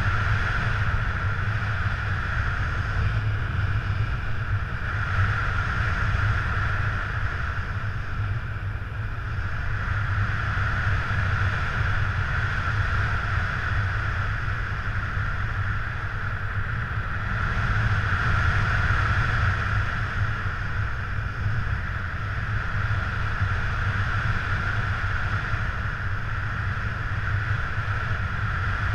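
Wind rushing over an action camera's microphone during a paraglider flight: a steady low rumble with a hiss that swells and fades every few seconds.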